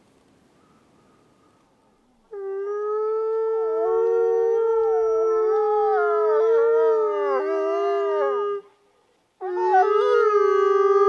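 Timber wolves howling. A long, steady howl begins about two seconds in, with a second wavering, rising-and-falling howl woven over it, and both cut off together. After a short pause a new howl rises and settles into a steady pitch near the end.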